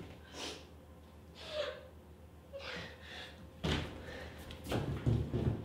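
A person gasps for breath three times, about a second apart. Then comes a sudden bang, and about a second later a heavier, deeper thud.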